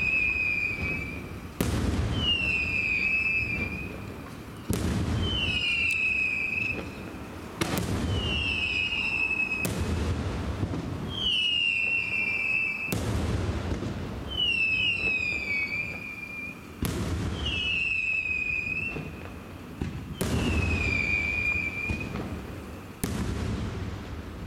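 Aerial fireworks going off about every three seconds. Each sharp bang is followed by a high whistle of about a second and a half that falls slightly in pitch.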